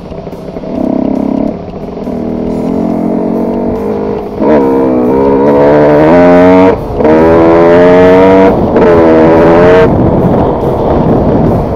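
Kawasaki KX 125 single-cylinder two-stroke engine running while being run in after a piston replacement. It runs low at first, then revs up in repeated rising sweeps under throttle, dropping off sharply and briefly twice before climbing again.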